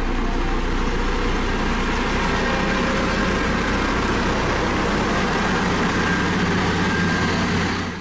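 Single-drum road roller's diesel engine running steadily as the machine drives over a gravel road base: an even, continuous low hum with a noisy wash over it, cutting off just before the end.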